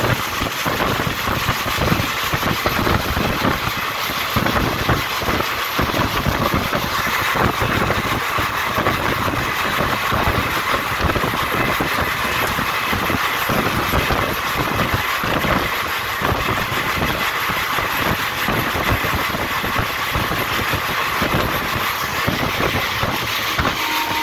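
Express train running at speed, heard from the side of a moving passenger coach: a steady rush of wind with rumbling wheel and track noise.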